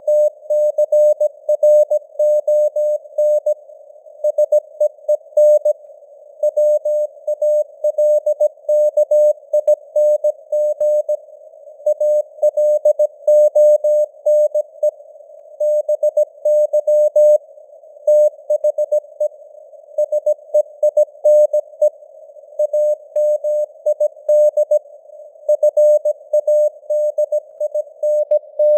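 Morse code (CW) sent at about 17 words per minute: a single steady mid-pitched tone keyed on and off in short and long elements, with short gaps between letters and longer ones between words. It sits in a narrow band of simulated receiver hiss, and its strength rises and falls from one word to the next, like a fading radio signal.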